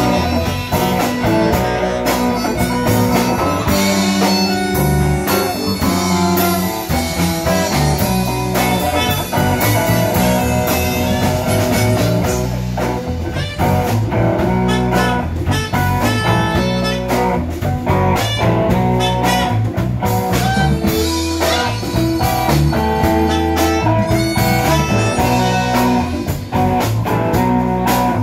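Live blues band playing, with electric guitars, bass guitar and harmonica.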